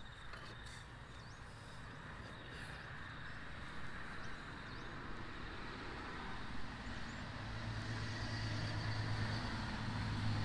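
A motor vehicle engine running nearby: a low steady hum that grows louder from about two-thirds of the way in.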